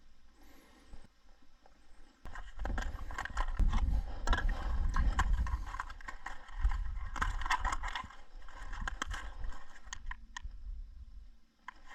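Footsteps scraping along a frosty trail while hiking, starting about two seconds in, over a low rumble on the microphone.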